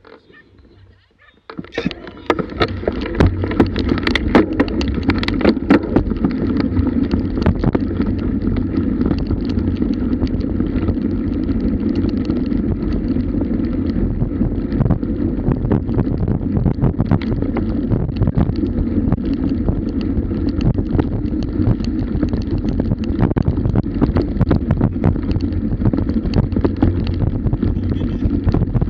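Wind rushing over an action camera's microphone and a bike rattling and bumping over rough grass at around 20 mph, pulled by a husky. It starts about two seconds in, when the bike sets off from a standstill, and carries on steadily with many small knocks.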